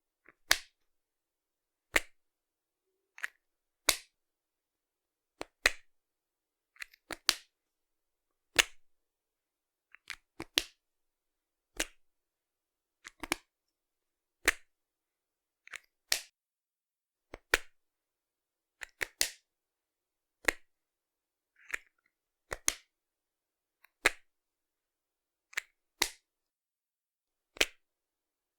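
Sharpie marker cap repeatedly popping off and snapping back on, a sharp plastic click every second and a half to two seconds, some in quick double clicks.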